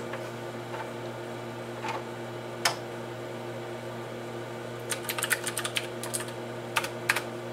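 Keystrokes on a computer terminal keyboard typing a disk command: a couple of single key presses, then a quick run of keys about five seconds in and two more near the end, over a steady low hum.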